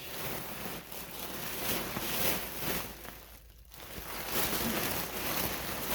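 Plastic bags rustling and crinkling as packs of yarn are handled and pulled out of a package, with a brief lull about three and a half seconds in.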